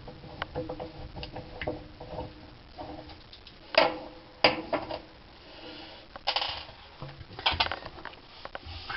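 Irregular clicks, knocks and short scrapes of hands working the plastic lint-filter parts of a Frigidaire Gallery dryer as it is taken apart for cleaning. The sharpest knocks come about four seconds in, with a brief scrape a little later.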